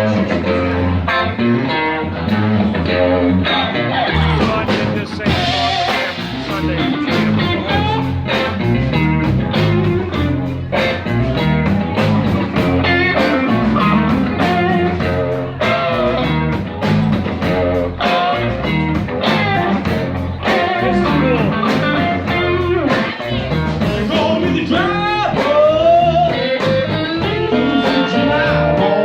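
A blues band playing a song with a steady beat, electric guitar to the fore, with some singing.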